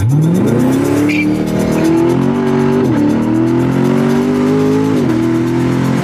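Chevrolet Corvette C7's 6.2-litre V8 accelerating hard through the gears, heard from inside the cabin. The engine pitch climbs steeply from the launch, then keeps rising, with two upshifts about three and five seconds in that each drop the pitch.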